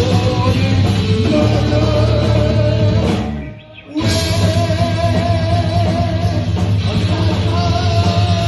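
Heavy metal band playing live: electric guitar, bass guitar and drums with sung vocals. The music drops out briefly about three seconds in, then the whole band comes back in at once.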